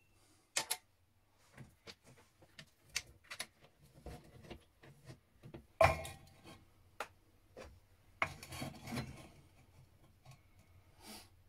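Scattered clicks, scrapes and knocks of hands working at a drill press whose motor is not running. The loudest is a wooden block set down on the metal drill table about six seconds in; a couple of seconds later the block is shifted and scraped about on the table.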